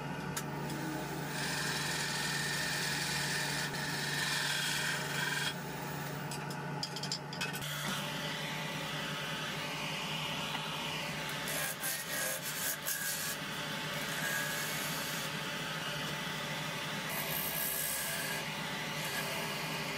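Wood lathe running with a steady motor hum while wood is worked on the spinning piece, giving a rough rubbing, rasping noise. In the second half a hand-held turning tool cuts a small block of wood between centres, with bursts of cutting hiss.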